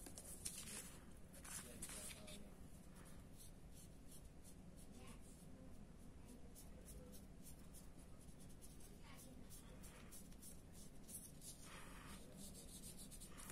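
Faint, irregular scratchy strokes of a paintbrush dabbing and brushing paint onto paper.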